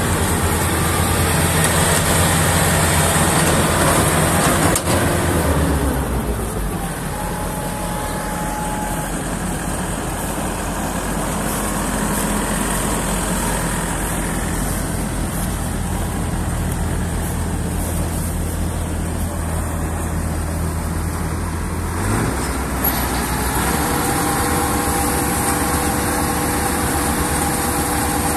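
FMWORLD Ruilong combine harvester's diesel engine running steadily under load, with the threshing and conveying machinery adding a broad mechanical din. The engine note drops about six seconds in and rises again a little after twenty seconds; near the end a steady whine joins as the grain-unloading auger runs.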